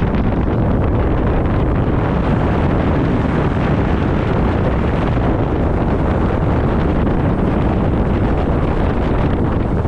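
Loud, steady wind buffeting the microphone over the running noise of a fishing boat underway across open water.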